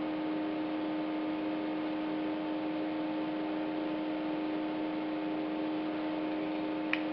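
Steady electrical hum with a faint hiss under it, unchanging throughout: the background noise of the recording.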